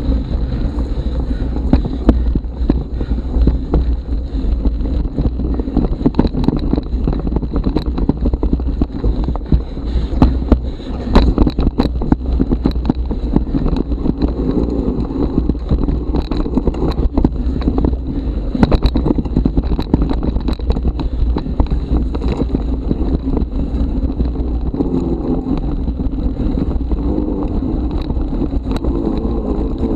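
Mountain bike riding fast over a rough forest trail and grass, with wind buffeting the helmet- or bike-mounted camera's microphone as a steady low rumble. Frequent clicks and knocks come from the bike jolting over bumps and roots.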